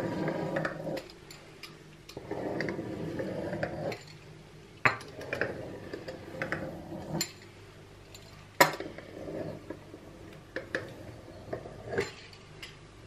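A metal pizza-cutter wheel rolling across rolled-out dough on a countertop: a rough rolling rasp in two stretches during the first four seconds, then a series of sharp clicks and taps as the wheel is set down and knocks on the worktop between cuts.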